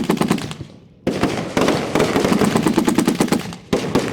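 Fireworks going off at close range in a rapid, dense string of sharp reports, like machine-gun fire. The string dies away briefly just before a second in, starts again and runs on, with a short break just before the end.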